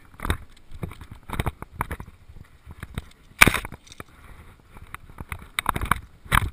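Footsteps on sandy ground and the rustle and knock of nylon leashes and clips handled close to a body-worn camera: irregular crunches and thumps, the loudest about three and a half seconds in.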